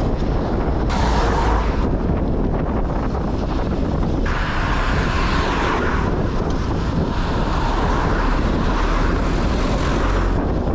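Wind buffeting a handlebar-mounted GoPro's microphones on a moving road bike, a loud steady rumble mixed with nearby car traffic. The foam furniture pads used as windscreens are badly stuck on, so the wind noise is heavier than it should be. The sound shifts abruptly about one and four seconds in.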